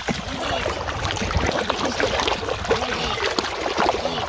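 River water splashing and trickling, with many short rising-and-falling cries over it.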